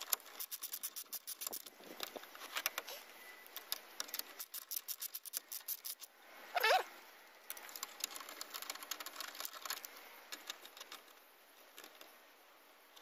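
Hand socket ratchet clicking in quick runs as a brake caliper bracket bolt is wound in. A brief high squeak is heard once, about halfway through.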